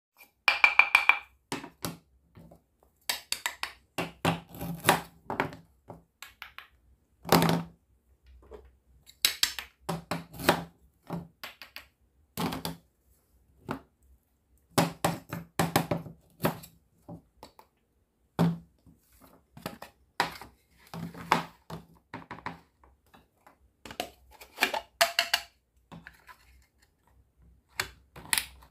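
Wooden toy knife and toy food knocking on a small wooden cutting board, with pieces of plastic play food and cookware being handled and set down: an uneven string of taps, clacks and thunks.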